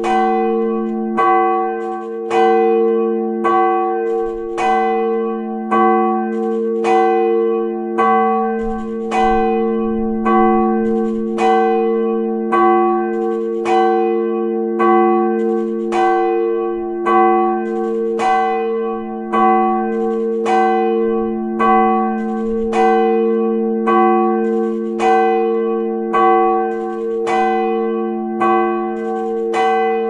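The large church bell of St. Joseph and St. Adalbert, a bronze bell of about 559 kg cast by the Fischer brothers of Trnava and tuned roughly to F-sharp, swinging and ringing on its own. The clapper strikes about once a second, and each stroke rings on into the next.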